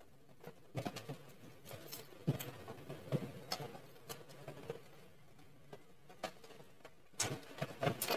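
A child chewing a mouthful of octopus: soft, irregular chewing clicks and mouth smacks, a little louder near the end.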